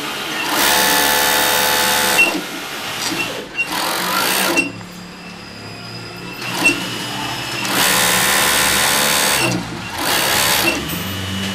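Racing MC S6C sewing machine running in two bursts of about a second and a half each, with quieter stretches and a few clicks between them.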